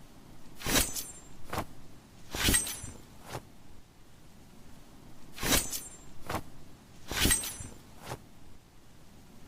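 Katar blades making metal-on-metal strokes that come in pairs, four times: a louder stroke with a short, high metallic ring, then a weaker one less than a second later.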